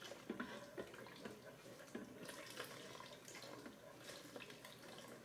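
Hot soup being stirred with a plastic ladle in a multicooker pot while an egg-and-lemon mixture is poured in: faint sloshing and dripping of liquid with small irregular knocks of the ladle against the pot.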